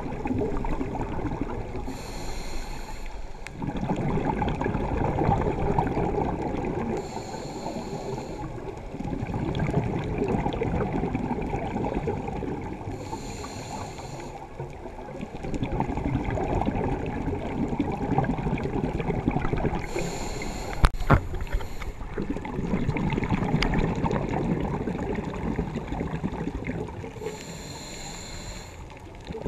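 Scuba diver breathing through a regulator underwater: a short hissing inhale about every six or seven seconds, five in all, each followed by a longer rumble of exhaled bubbles. A single sharp tap about two-thirds of the way through.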